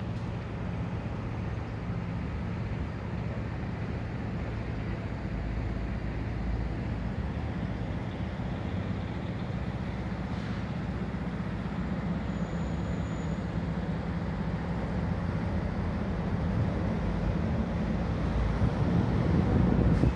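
Steady low mechanical hum of engines and machinery with traffic noise in an industrial area, growing a little louder near the end.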